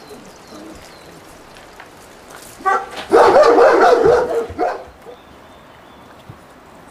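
A 5½-week-old Belgian Malinois puppy yelping in play: a short cry about two and a half seconds in, then a loud, drawn-out cry lasting about a second, then one more short cry.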